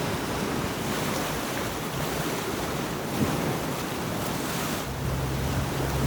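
Sea waves washing against the rocks, with wind buffeting the microphone. About five seconds in, a low steady hum joins.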